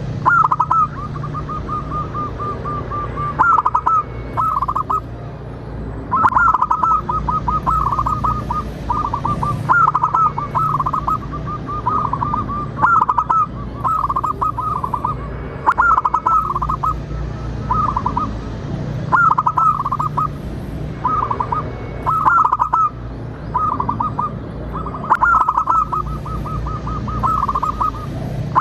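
Zebra dove calling in short phrases of rapid, quavering notes, repeated every two to three seconds. This is a lure call meant to set other doves singing. A steady low hum runs underneath.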